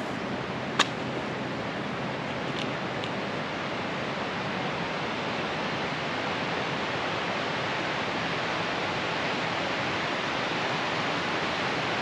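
River water rushing over rocky shoals: a steady, even hiss that grows a little louder in the second half. One sharp click sounds about a second in.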